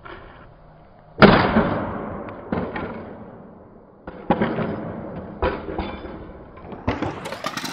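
A firefighter's helmet dropped from high up smacks onto wet concrete about a second in, loudly, the sound fading slowly, followed by several smaller knocks and thumps.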